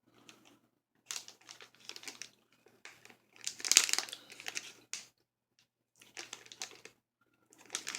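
Plastic candy bag crinkling in irregular bursts as it is handled, loudest about four seconds in, with a shorter flurry near the end.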